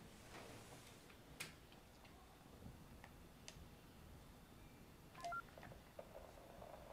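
Near silence with a few faint clicks. About five seconds in, a handheld baby monitor gives a quick run of short electronic beeps at a few different pitches.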